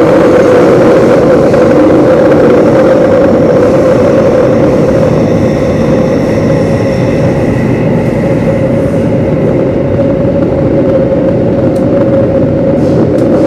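Singapore MRT Downtown Line train running through an underground tunnel, heard from inside the carriage: a loud, steady rumble of wheel and rail noise with a strong hum. A faint high whine sits over it for a few seconds in the middle.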